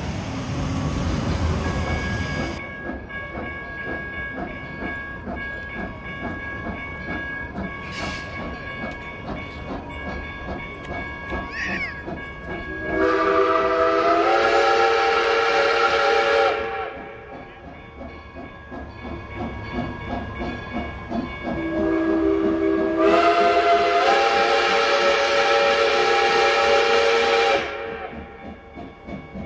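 A light-rail train rumbles past at the start. Then Polson Logging Co. No. 2's steam whistle sounds two long blasts, several notes at once, each rising in pitch as it opens. The second blast is longer than the first.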